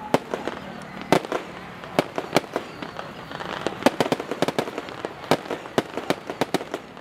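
Aerial fireworks going off: an irregular run of sharp bangs and pops, several a second, some louder than the rest.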